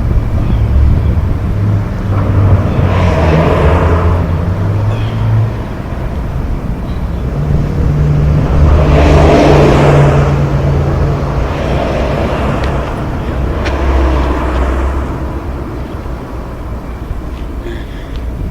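Traffic noise: a steady low engine hum, with vehicles swelling past about three, nine and fourteen seconds in.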